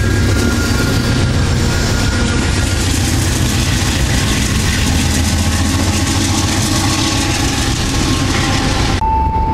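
Amtrak GE Genesis diesel-electric locomotive's engine working under load as the train pulls out of the station: a loud, steady heavy rumble with a low hum, mixed with the noise of the moving train. It cuts off abruptly near the end.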